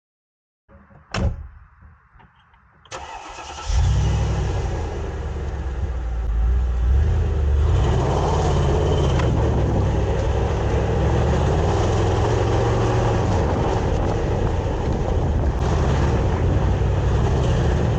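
A single knock about a second in, then a car engine starts about three seconds in and runs steadily.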